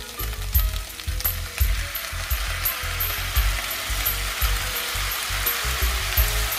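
Sauce glaze sizzling as it is poured into a hot wok over fried pork, pepper and onion, a dense frying hiss that builds as more sauce goes in.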